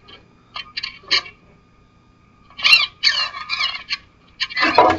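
Small RC buggy's electric motor revved in several short bursts, whining up and down in pitch, as the freshly bound car is tested by hand.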